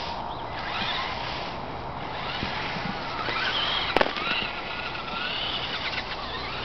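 Axial Wraith RC rock crawler's electric drive motor and gears whining as it drives over frozen snow, the pitch rising and falling with the throttle. A sharp click about four seconds in.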